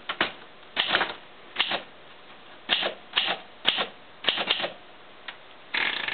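Keys being typed on a 1959 Olympia SM4 script manual typewriter: a dozen or so sharp keystroke clacks at an uneven pace, in small groups, with a quicker cluster near the end. The keys are being struck with a firm snap.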